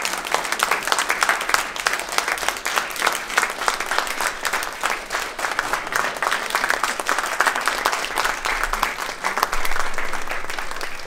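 Audience applauding: a roomful of people clapping in a dense, steady patter.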